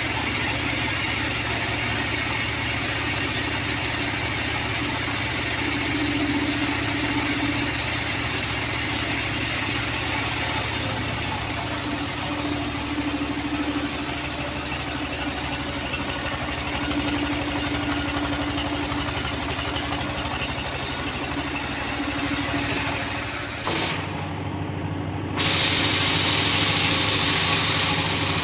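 Engine-driven homemade bandsaw sawmill running steadily, with a hum that comes and goes. Near the end the sound changes abruptly, becoming louder and brighter.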